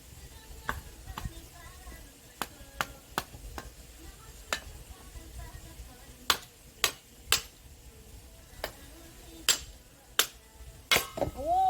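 Sharp, irregularly spaced strikes of an axe on firewood, about fourteen blows as the log is hacked at and split. A cat gives a long, falling meow near the end.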